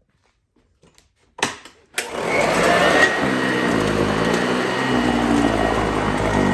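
Sanitaire upright vacuum cleaner switched on: a couple of clicks about a second and a half in, then the motor spins up within about a second and runs steadily with a faint high whine.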